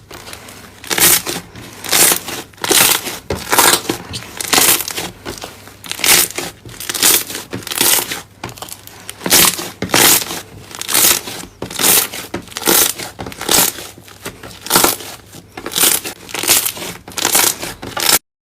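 Crunchy slime being squeezed and pressed, crackling and crunching in repeated bursts about once a second. It stops abruptly near the end.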